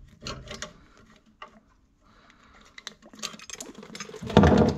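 Hand pipe cutter being turned around a copper pipe: runs of small scratchy clicks with a near-quiet pause of about a second. Near the end comes a louder noisy rush, the water left in the freshly cut pipe splashing out.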